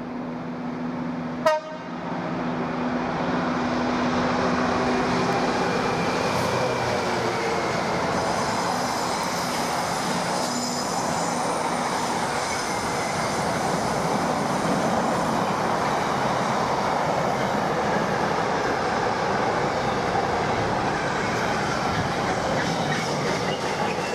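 A train passing at length: a steady rumble of wheels on rail that builds over the first few seconds and then holds. A low steady hum sounds at the start, and there is one sharp crack about a second and a half in.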